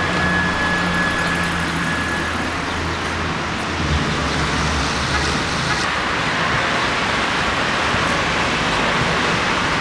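Street traffic: steady road noise from passing cars, with a low engine hum that fades out about five seconds in.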